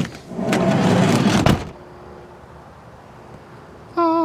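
A van's sliding side door rolling along its track and shutting with a thud about a second and a half in. Near the end a steady, held humming tone begins.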